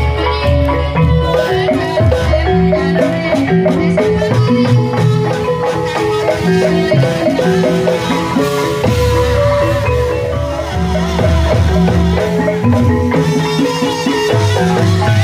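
Gamelan music for an ebeg hobby-horse dance: mallet-struck tuned percussion playing a busy, repeating melody of short ringing notes over lower sustained tones.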